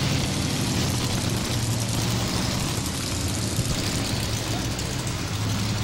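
Modified 4x4 pulling truck (a Chevy S10) with its engine running at a steady low speed, not revving, over a steady hiss.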